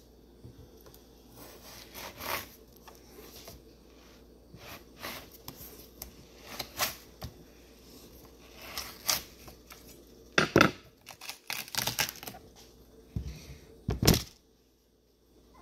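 A large kitchen knife cutting through a whole watermelon's rind and flesh: crisp crackling and crunching strokes at irregular intervals. There are a few louder knocks near the end as the melon comes apart.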